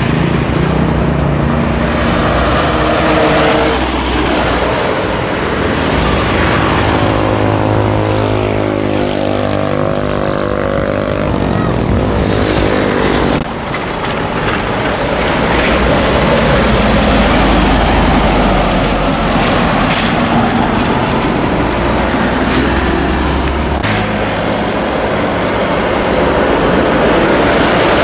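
Mitsubishi Fuso Canter light trucks' diesel engines running as they drive past on the road, with tyre and traffic noise. Partway through, one engine's note slowly falls in pitch, and the sound changes abruptly a little later as another truck takes over.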